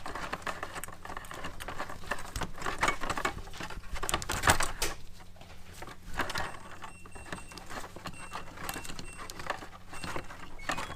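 Irregular rustling, clicks and light knocks of plastic connectors and wires being handled and pushed through a headlight's rubber cap, with a sharper knock about four and a half seconds in.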